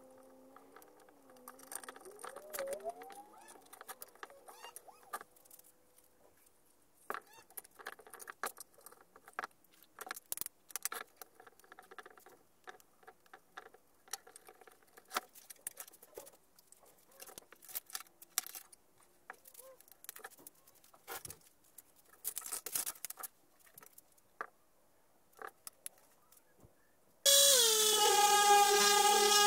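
Light clicks and taps of a power cord, plug and inline switch being handled on a wooden workbench. Near the end an electric random orbital sander is switched on and runs steadily, much louder than the handling.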